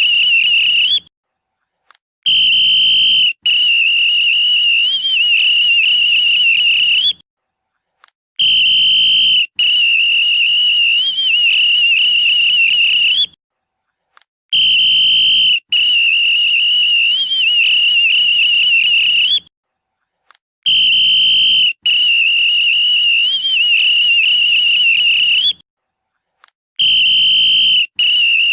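Police whistle blown in a repeating pattern: a short blast, then a long trilling blast of about four seconds, with a second of silence between rounds. The pattern comes round about five times.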